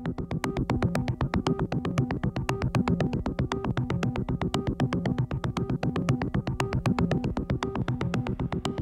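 Industrial electronic music: a repeating sequenced synthesizer pattern over fast, even clicking percussion, about seven clicks a second, easing down slightly near the end.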